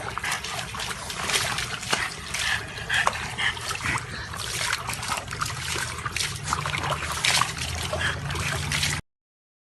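Water splashing and trickling in irregular bursts, cutting off suddenly near the end.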